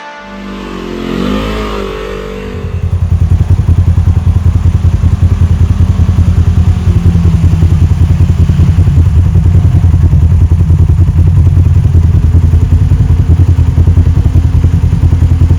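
ATV engine running loud and close, with a rapid, even throb. In the first couple of seconds its pitch wavers up and down before it settles into a steady run.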